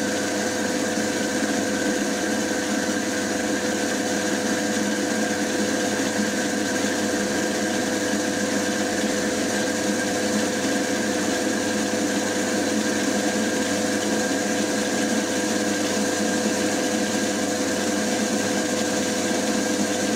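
FDB Maschinen Turner 250x550 bench lathe running at 620 rpm under longitudinal power feed, its cutter taking a steady pass of about a millimetre per side along a metal workpiece. Motor and gearing give a steady whine of several tones over the hiss of the cut.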